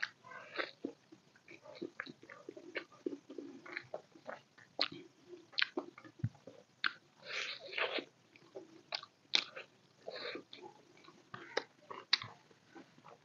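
Close-miked eating sounds of a person biting and chewing chicken biryani, pulling meat off a chicken leg piece by hand: irregular wet smacks and clicks of chewing.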